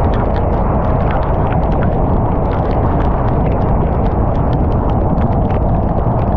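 Torrential rain pelting a moving car: a dense, unbroken patter of sharp drop impacts over a steady low rumble.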